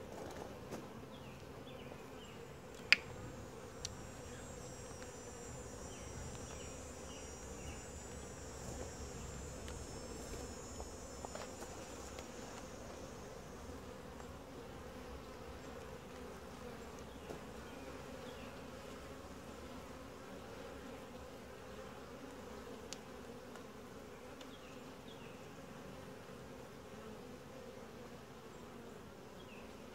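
Honey bee colony buzzing steadily from an open hive; the uploader calls the colony quiet, gentle and calm. A single sharp click about three seconds in.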